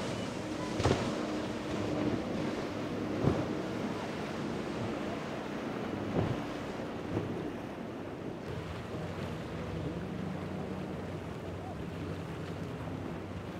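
Outboard-powered boats running fast through rough water: a steady engine drone under the rush of spray and breaking waves, with wind buffeting the microphone. Three sharp thumps come in the first six seconds or so.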